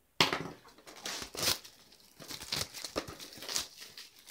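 Clear plastic shrink-wrap film crinkling and tearing as it is peeled off a DVD box, in a string of irregular crackles and rustles; the film clings to the box.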